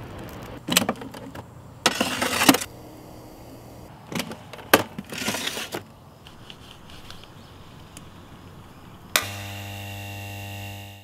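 Metal sheet pans clattering and scraping in several short bursts as they are set down and slid into a portable oven. Near the end a steady low buzzing note starts with a sharp hit and holds until it cuts off.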